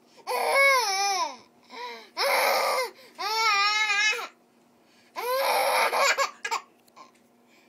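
A toddler's loud, high-pitched wails, four drawn-out cries of about a second each with falling or wavering pitch, turning to laughter in between.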